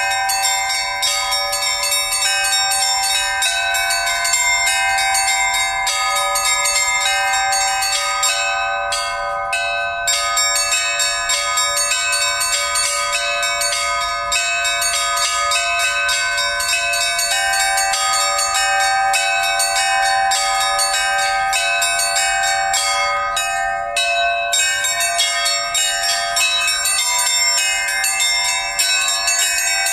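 Orthodox church bells rung by hand in a continuous, rapid peal: many bells struck in quick succession, their ringing tones overlapping. The pitches are all mid and high, with no deep bass bell heard.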